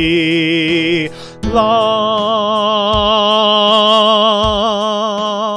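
A man singing solfege with vibrato over a practice track with a steady beat. He holds a "mi", breaks for a breath about a second in, then sings a long, higher "la".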